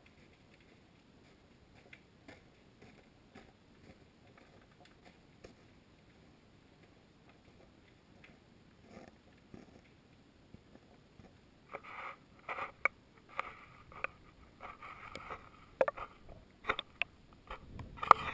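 Sound picked up through an underwater GoPro housing: faint scattered clicks at first. About twelve seconds in, a run of louder knocks, clatters and scrapes begins as the camera is moved and lifted off the bottom.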